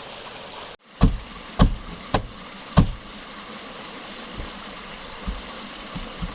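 Four sharp knocks on a hard surface about a second in, roughly half a second apart, over the steady rush of a creek; a moment of dead silence comes just before the first knock.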